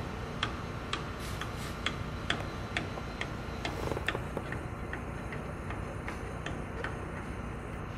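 Evenly spaced sharp clicks, about two a second, over a steady low rumble.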